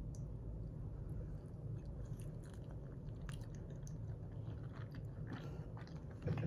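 A person chewing and biting into steamed dumplings (mandu), with scattered small clicks, over a steady low hum.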